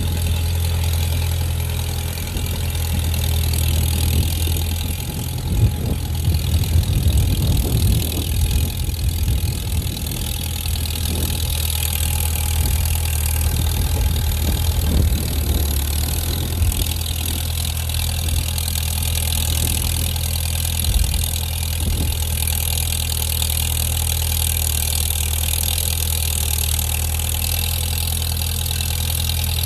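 1953 Farmall tractor engine running steadily at a low, even pitch while it pulls a grading blade over a dirt driveway. An uneven rumble with scattered knocks rises over it for a stretch in the first half.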